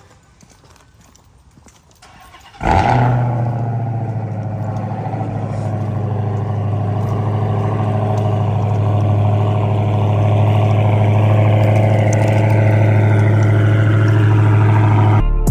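Dodge Hellcat's supercharged 6.2-litre HEMI V8 starting about two and a half seconds in, with a loud flare that drops quickly, then idling steadily through a muffler-deleted exhaust.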